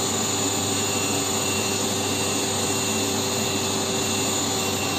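Dust-extraction vacuum running steadily through the hose on the table saw's blade guard: an even rushing hum with a few constant tones.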